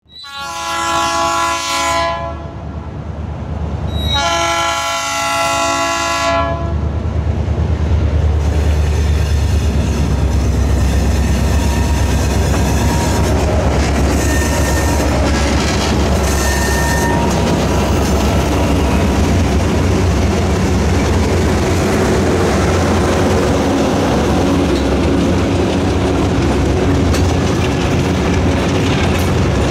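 A diesel freight train's multi-chime horn sounds two long blasts in the first six seconds from the lead ex-Rio Grande GP40-3 locomotive. Then the diesel engines' low, steady rumble builds as the locomotives pass, followed by hopper cars' wheels clattering over the rail joints.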